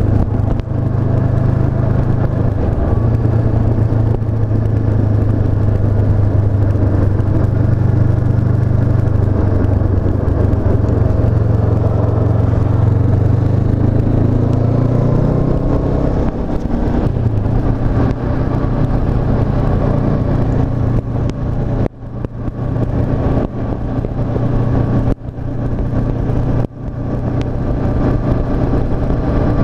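Honda CB500F's 471 cc parallel-twin engine running steadily as the motorcycle rides along, its pitch edging up around the middle and dropping a little after. Near the end the sound breaks off briefly three or four times.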